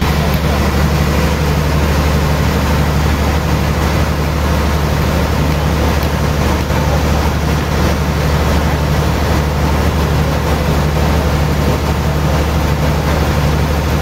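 Log band sawmill running: a loud, steady low drone with a wide hiss over it, starting suddenly at the beginning, as the carriage carries a large suar log along to the saw blade.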